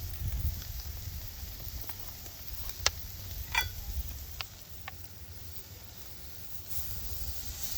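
Sirloin steak fat sizzling over a wood fire, with a few sharp pops and crackles scattered through it over a low rumble.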